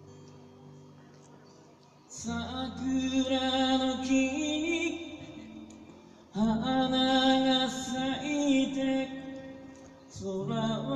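A man singing to his own acoustic guitar: a strummed chord rings out and fades, then he sings two long phrases of held notes over the guitar, and a third begins near the end.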